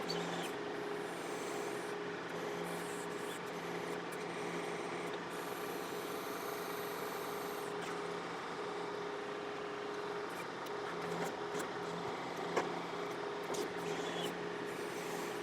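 John Deere 4052R compact tractor's diesel engine running steadily under a held tone while the 485A backhoe digs at a stump, with a few short knocks, the loudest about three-quarters of the way through.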